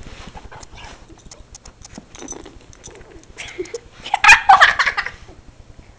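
A small dog whining and yipping close to the microphone, with a loud burst of high, wavering whines about four seconds in, among soft clicks and snuffling as it licks at a face.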